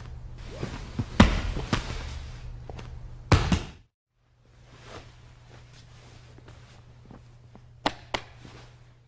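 Two grapplers in jiu-jitsu gis moving on a training mat: cloth rustling and bodies thudding onto the mat, with several sharp thuds, the loudest a little over three seconds in, over a low steady hum. Just under four seconds in the sound cuts off, leaving only the hum and two sharp clicks near the end.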